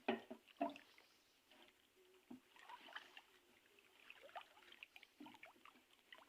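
Faint water sounds: small splashes and trickles, with a few light knocks.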